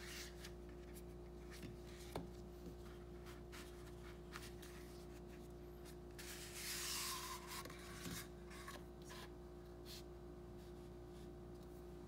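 A cardboard pencil box being handled and opened by hand: light taps and rustles, then a longer sliding rub of card on card about six seconds in.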